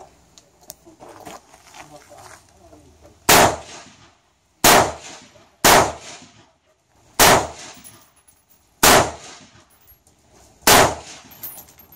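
Six rifle shots fired one at a time at an uneven pace, roughly one to two seconds apart, starting about three seconds in; each shot has a short echo off the enclosed shooting bay.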